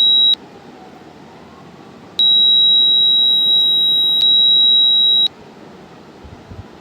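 Piezo buzzer of a simulated Arduino fire alarm sounding a steady high-pitched tone, set off by the gas sensor detecting gas. It stops just after the start, then sounds again for about three seconds.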